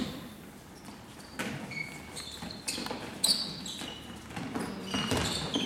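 Sports shoes squeaking on a sports-hall floor, several short high squeaks, with a few thuds of a handball bouncing and being caught.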